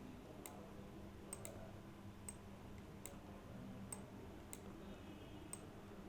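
Faint, sharp clicks, about nine of them at irregular intervals a half-second to a second apart, over a quiet room with a low steady hum.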